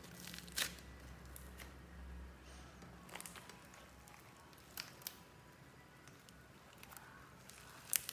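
Clear slime and soft clay being squeezed and pressed by hand: a handful of sharp sticky pops and crackles, the loudest near the end.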